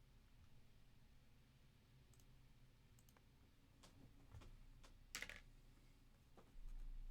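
Faint, scattered clicks of a computer mouse and keyboard being worked, one louder click about five seconds in, over a low steady hum.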